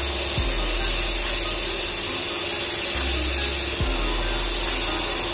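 CNC milling machine spindle running a 5 mm end mill through a roughing pass, with a steady hiss of flood coolant. A low hum underneath steps in pitch a few times.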